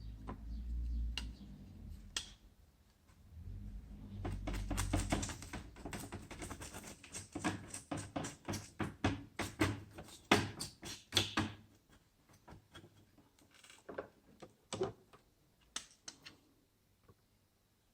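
Hands clicking and tapping on a laptop: a run of rapid clicks for several seconds, then a few scattered single clicks, with low thumps of handling near the start.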